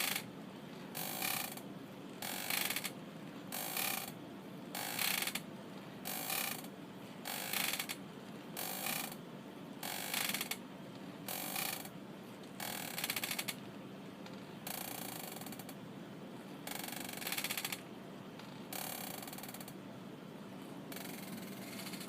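Rocking chair creaking over and over as it rocks, about one creak every 1.3 seconds. After about 13 seconds the rocking slows, and the creaks grow longer and softer, about two seconds apart. A steady hiss sits underneath.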